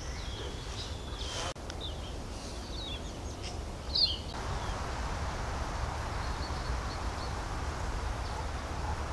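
Outdoor bird ambience: small birds chirping now and then over a steady low rumble, with one louder chirp about four seconds in. After that the chirps thin out and a steady hiss takes over.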